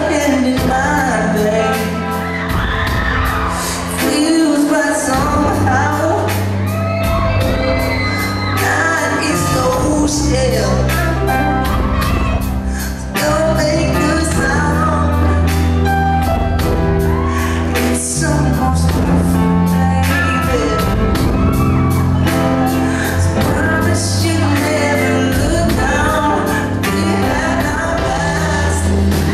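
A live rock band in a concert hall: a male lead vocalist singing into a microphone over drums and bass playing a steady beat, picked up from the audience with the hall's echo.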